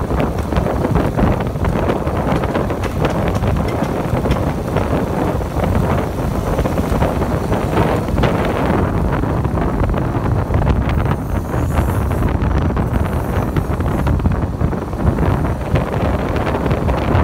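Wind buffeting the phone microphone of a passenger riding on a moving motor scooter, with a steady low rumble of the scooter and road.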